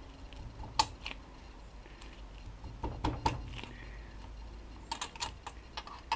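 Light, irregular clicks and taps of small Solex moped engine parts being handled during assembly. The sharpest comes a little under a second in, a few follow about halfway, and a cluster comes near the end.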